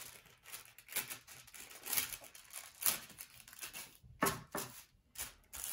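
Clear plastic sandwich bag crinkling as hands handle it and smooth it flat, in a run of short, irregular crackles, a few louder ones in the second half.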